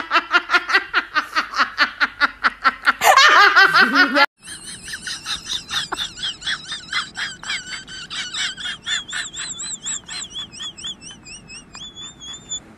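Two laughter clips back to back. First a person laughs hard in rapid rhythmic bursts, several a second; about four seconds in it cuts off abruptly, and a quieter, very high, squeaky laugh in quick pulses takes over and runs on, climbing higher near the end.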